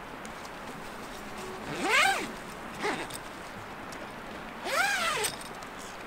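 A cat meowing twice, each meow rising and then falling in pitch, with a short, softer call between them.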